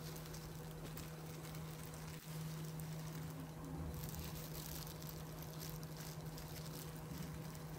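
Faint room tone: a steady low hum with light hiss and no distinct handling sounds.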